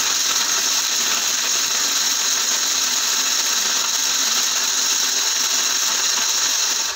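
Electric mixer-grinder running, grinding a jar full of dry-roasted whole spices into powder. A loud, steady whir that cuts off suddenly near the end.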